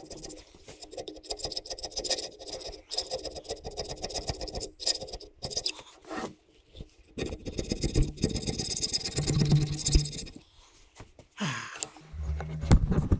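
Hand scraping of hardened gasket sealant off a Bendix Tu-Flo 500 air compressor's mating face, in runs of quick repeated strokes with brief pauses.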